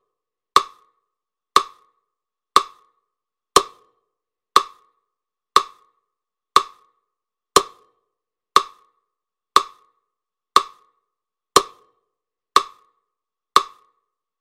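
A single sharp tick repeats exactly once a second, steady as a metronome, each one dying away quickly.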